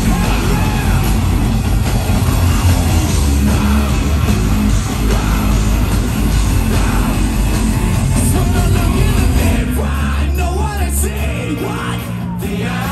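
Live rock band playing loudly: drums, bass guitar and keyboards under a lead singer's yelled and sung vocals. About ten seconds in, the heavy bass drops away and the vocals stand out, then the full band comes back in near the end.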